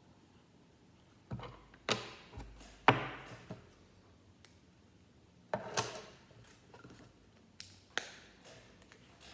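Plastic Lego pieces clicking and clattering as they are handled and pressed together, in several short clusters of sharp clicks, the loudest about three seconds in.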